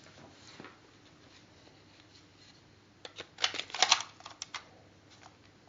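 Near-quiet hiss, then about three seconds in a short burst of sharp clicks and rattles lasting a second or two.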